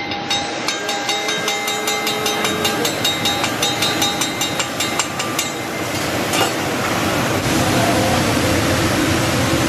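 Hibachi chef's metal spatulas clanking on a steel teppanyaki griddle, about four ringing strikes a second, stopping after about five and a half seconds with one more strike a second later. Then steady sizzling of vegetables on the hot grill.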